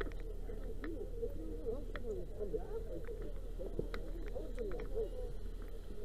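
Indistinct, overlapping voices of a crowd, with no clear words, over a steady low hum and scattered small clicks.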